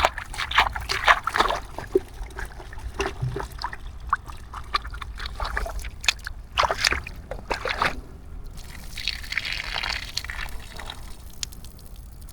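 Water sloshing and splashing in quick irregular strokes as a bamboo-style fish trap is rinsed in a pond, then a steadier rush of water for about two seconds, about nine seconds in.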